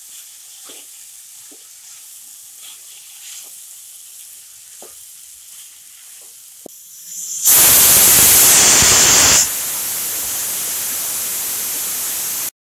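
Vegetables sizzling softly in a kadhai with spatula scrapes, then about seven seconds in a pressure cooker's whistle lets off steam in a loud hiss: fiercest for about two seconds, then steady until it cuts off suddenly near the end. The dal inside has cooked through under pressure.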